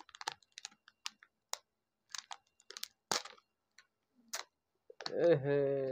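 Crackling and crinkling of a stiff foil snack pouch being handled and worked at to tear it open, in scattered short crackles at uneven intervals. A man's voice starts about five seconds in.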